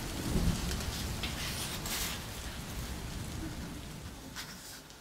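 Pages of a hardcover picture book being turned, with a few brief paper rustles, over a steady hiss that slowly fades.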